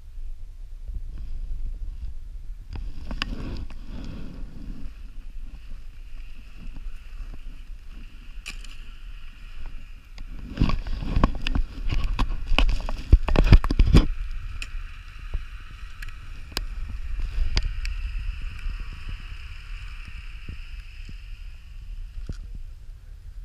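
Wind buffeting an action camera's microphone, a steady low rumble, with a burst of loud knocks and clicks from the camera being handled and moved around the middle.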